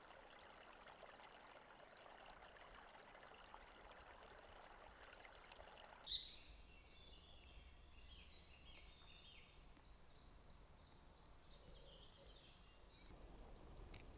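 Near silence: faint outdoor ambience, a soft hiss for the first six seconds, then faint high chirps of birdsong from about six seconds in until near the end.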